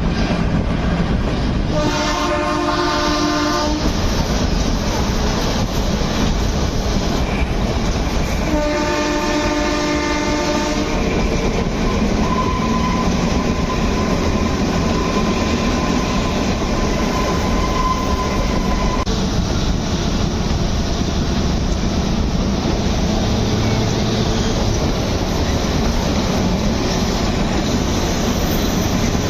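Kalka–Shimla narrow-gauge toy train running, wheels clattering over the track under a steady rumble. The locomotive horn sounds twice, each blast about two seconds long: the first about two seconds in, the second about nine seconds in. A faint, thin, steady whine is heard for several seconds in the middle.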